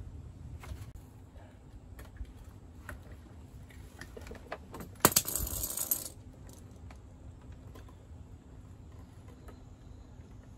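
Scattered light clicks, then a brief, loud metallic jangling clatter about halfway through, like small metal tools or parts being handled.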